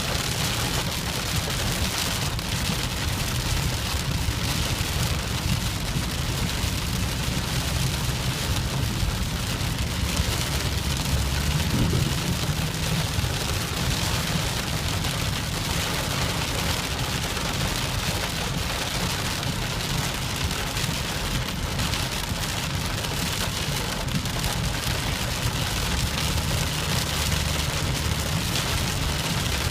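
Steady rain falling, with a constant low rumble beneath it.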